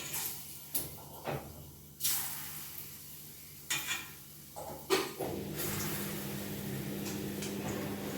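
Several knocks and clatters of kitchen handling, then a steady hiss from about five seconds in.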